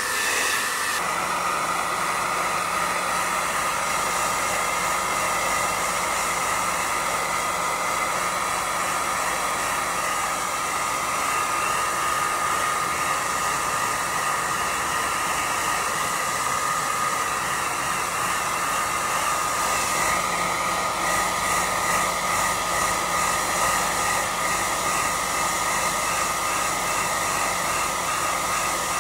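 Pet grooming dryer running steadily, a constant whine over rushing air, as it blows on a wet dog's coat.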